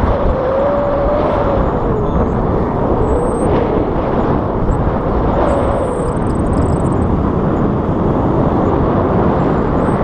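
Wind rushing over an action camera's microphone on a tandem paraglider in flight: a loud, steady rumble.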